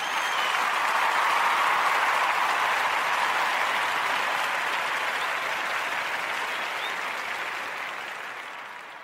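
A crowd applauding, loudest in the first few seconds and fading out slowly toward the end.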